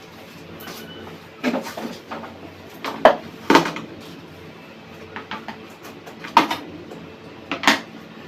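Sharp knocks and clatters of hard objects being handled, about half a dozen at irregular intervals, the loudest pair a little after three seconds in: typical of working on a microwave oven's metal casing and parts.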